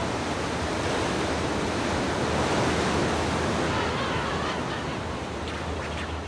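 Heavy ocean surf breaking and churning, a steady rushing wash that swells to its loudest about halfway through.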